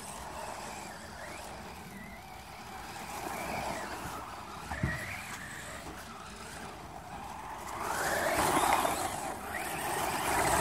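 Electric RC monster truck driving through snow, its motor whine rising and falling with the throttle and loudest a couple of seconds before the end, with a brief knock about halfway.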